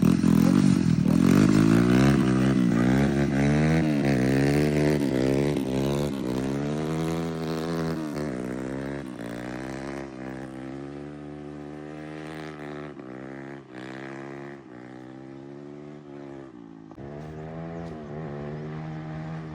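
Drift go-kart's small engine revving up and down again and again under throttle, loudest at first and growing fainter, then running more steadily near the end.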